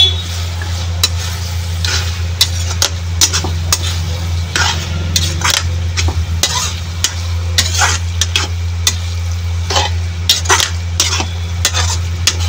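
A utensil stirring and scraping paneer bhurji in a pan, with irregular strokes a few times a second over a light sizzle. A steady low hum runs underneath.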